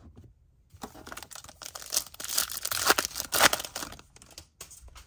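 Foil wrapper of a Bowman baseball card pack being torn open and crinkled. The crackling starts about a second in and lasts about three and a half seconds, loudest in the middle.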